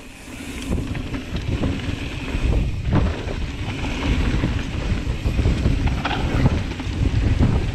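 Wind buffeting a GoPro action camera's microphone while a mountain bike rolls fast down a dirt trail, tyres rumbling over the ground; the noise builds over the first second as the bike picks up speed. A short knock about three seconds in.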